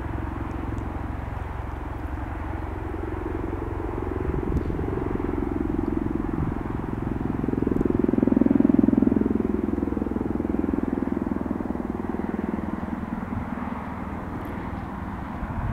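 AH-64D Apache attack helicopter flying past overhead: the rapid, even chop of its four-blade main rotor over the turbine and rotor noise. The sound grows to its loudest a little past halfway, then fades.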